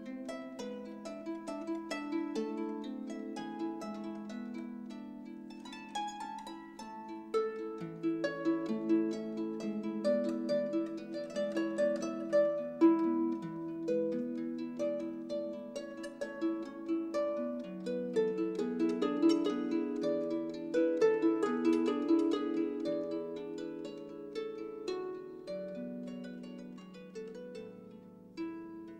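Instrumental background music: a melody of many quick plucked notes over longer held lower notes, fading down near the end.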